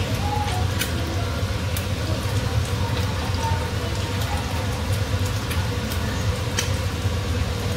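Chicken liver adobo simmering in a pot on a gas burner: a steady bubbling hiss with scattered small pops.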